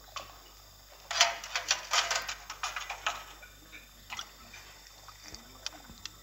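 Animated-film sound effects of a chef tasting soup off a spoon: a quick flurry of short wet smacking and clicking sounds about a second in, then a few scattered faint ticks.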